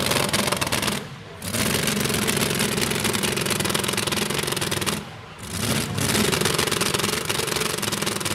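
Loud engine of a modified two-wheel-drive pulling truck running at the starting line, hooked to the sled, just before the pull. The sound drops away briefly twice, about a second in and again about five seconds in.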